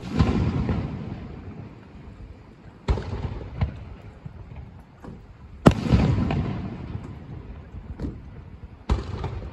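Aerial firework shells bursting overhead: four sharp booms about three seconds apart, each trailing off in a fading rumble with scattered crackles. The third boom, a little past the middle, is the loudest.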